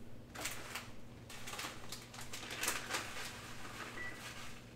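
Faint, irregular light clicks and clatter, about a dozen over a few seconds, with a brief faint high tone near the end.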